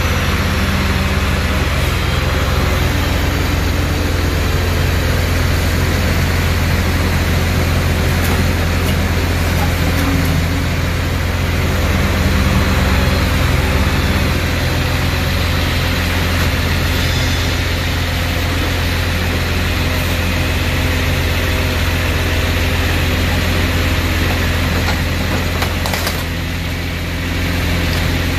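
Engine of a mobile scrap-car press and its loader crane running steadily with a deep hum, as the grapple handles wrecked cars. The engine note dips briefly near the end, then picks up again.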